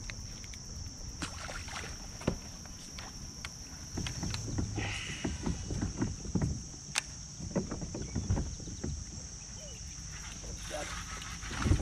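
Water lapping and slapping against a fishing kayak's hull, with small knocks of gear and handling, busier from about four seconds in. A steady high-pitched hiss runs underneath.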